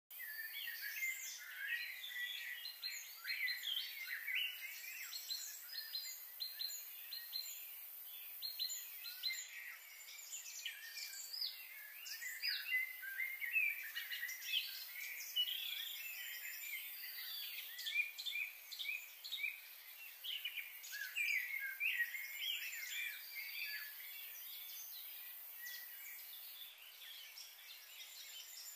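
Many small birds chirping and calling at once, a dense, overlapping chorus of short high notes and trills, over a faint steady high hiss.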